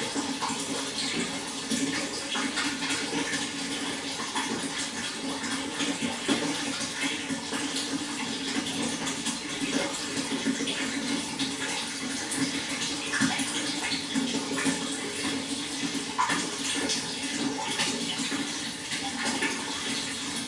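Flowing water: a steady rush dotted with many small splashes.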